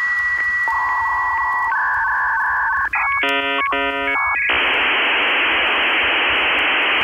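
Dial-up modem handshake: a steady high answer tone with a faint click about every half second, then warbling two-pitch tones, a run of buzzy beeps, and from about four and a half seconds in a steady loud hiss of data noise.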